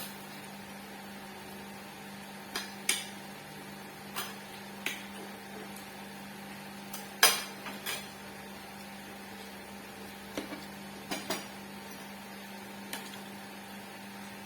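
Utensils and dishes clinking and tapping during a meal: about ten separate sharp clicks spread irregularly, the loudest about seven seconds in. A steady low hum runs underneath.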